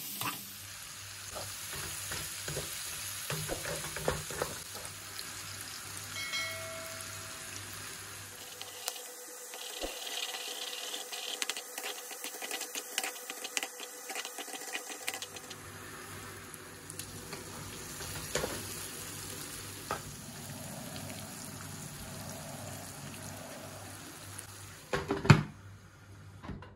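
Chicken hearts, potatoes and onion sizzling in a frying pan, with a wooden spatula stirring and scraping against the pan. Near the end comes one loud clack as the glass lid is set on the pan.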